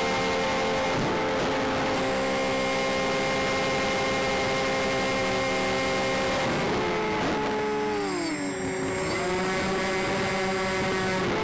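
Motors and propellers of a radio-controlled C-124 Globemaster model, heard from a camera on board, with wind noise. The motors run at a steady, several-toned pitch. About seven seconds in the pitch falls as they are throttled back, then holds steady lower.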